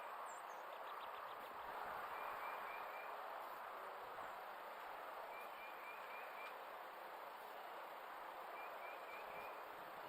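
Insects calling outdoors: a steady hiss of insect noise, with a short run of four or five chirps that repeats about every three seconds.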